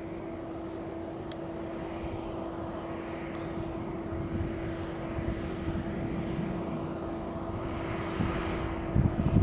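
Airbus A320 jet engines running, with a steady whine over a rush of noise that slowly grows louder. Wind buffets the microphone near the end.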